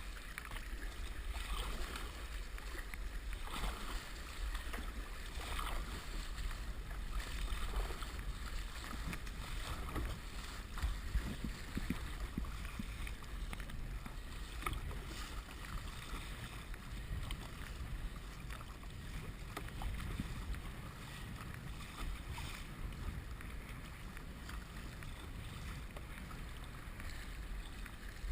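Kayak being paddled through the sea: irregular splashes of water from paddle strokes and the hull over a steady low rumble of wind on the microphone.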